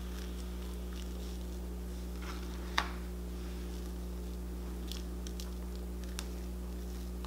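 Knife spreading soft cheese over a raw chicken breast: faint wet scrapes and squishes, with one sharper tap about three seconds in. A steady low hum runs underneath.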